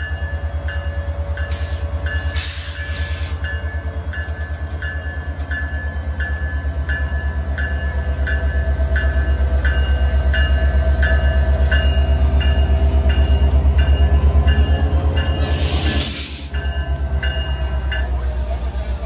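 Canadian Pacific diesel locomotive rolling slowly past with a deep, fast-pulsing engine rumble, while a level-crossing bell dings steadily about twice a second. Two short hisses come through, one about two and a half seconds in and one near the end.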